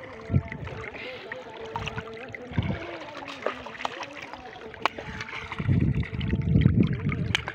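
Water splashing and trickling around a hooked catfish lifted on a fishing line from the river, with a few sharp clicks. A faint distant voice hangs in the background, and wind rumbles on the microphone near the end.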